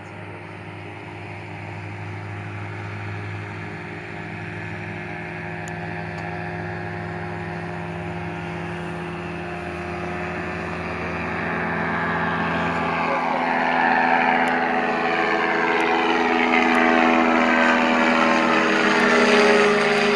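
Propeller engines of small ultralight aircraft flying overhead, a steady droning that grows louder as the planes approach. About two-thirds of the way through, the pitch drops as one plane passes, and a higher engine tone becomes loudest near the end.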